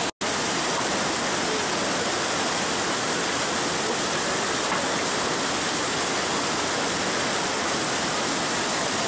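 Fast snowmelt water rushing over and between rocks, a steady, even noise of moving water. It cuts out for an instant just after the start.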